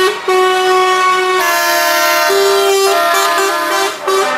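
Truck air horns sounding in long, overlapping blasts. Several pitches sound together, and the chord shifts or breaks off every second or so.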